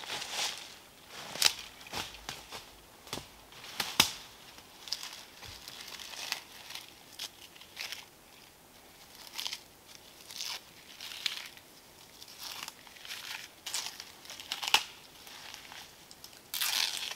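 Footsteps crunching and rustling through dry fallen leaves and twigs on a forest floor, with a few sharp twig snaps. Rustling and tearing as birch bark is gathered by hand.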